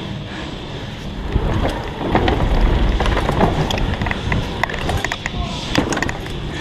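Mountain bike ridden fast over an indoor track: tyre rumble, chain and frame rattle with sharp knocks, and wind on the microphone, getting louder and rougher from about two seconds in.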